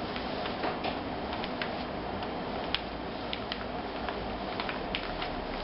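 Light scattered clicks and taps of paper and a glue bottle being handled while glue is put along a paper fold, over a steady background hiss.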